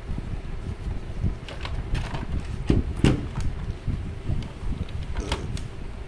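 Plastic back cover of a PTC tower fan heater being eased off its housing: a scattering of plastic clicks and knocks, the loudest about three seconds in, over a low rumble of handling noise.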